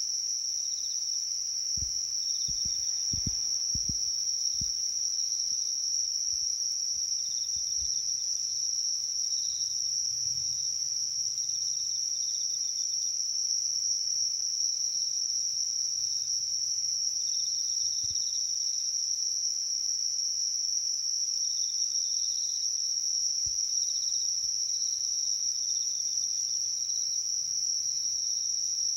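A chorus of insects: a loud, unbroken high-pitched trill, with softer pulsing chirps from other insects coming and going below it. A few low thumps sound a couple of seconds in.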